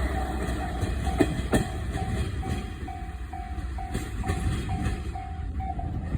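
Japanese level crossing alarm ringing in an even run of repeated tones, about two a second, while a JR Shikoku 1500 series diesel railcar runs past with a low rumble. Its wheels click sharply over rail joints twice about a second in.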